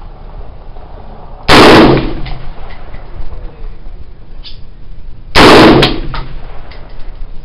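Two single rifle shots from a Dominion Arms AR-15 in 5.56×45, about four seconds apart. Each is a very loud crack followed by a brief echo.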